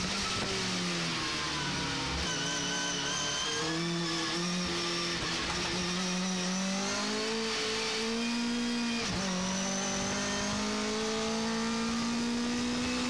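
Race pickup truck's Vauxhall XE four-cylinder engine, heard from inside the cabin, running hard at high revs. Its pitch falls and climbs again, then dips sharply about nine seconds in as a gear changes before rising once more.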